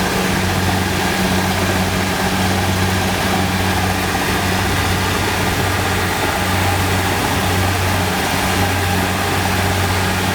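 Diesel engine of a Kubota DC-70 rice combine harvester running steadily with a constant low hum and a broad mechanical whir.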